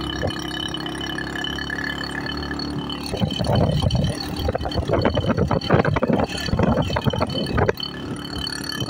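A vehicle engine running steadily while travelling over sand. From about three seconds in until near the end, loud irregular buffeting and rattling sounds over it.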